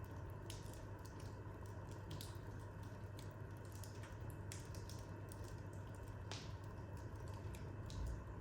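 Wood fire burning in a corner fireplace, with irregular small crackles and pops over a steady low hum.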